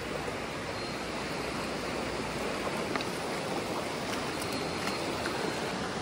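Shallow mountain stream running steadily over stones, with a couple of faint clicks.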